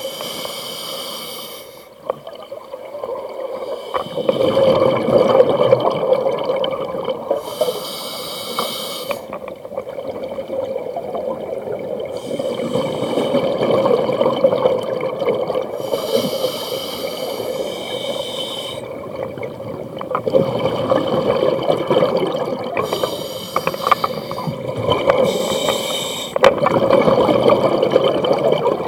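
Scuba diver breathing through a regulator underwater: a hiss on each inhale, then a longer rush of exhaust bubbles on each exhale, about four slow breaths.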